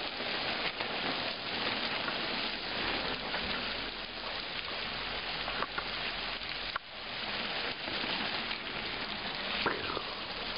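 Water from a small waterfall pouring and splashing down onto the road: a steady, dense hiss of falling water, with a few sharp clicks partway through.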